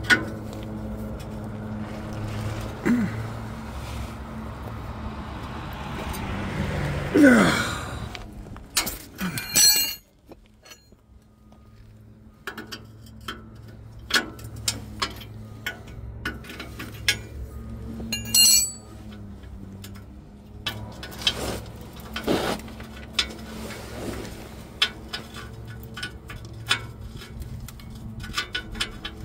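Metal tools clinking, tapping and scraping in repeated sharp clicks, over a steady low hum, with a few squeaky scrapes about seven seconds in.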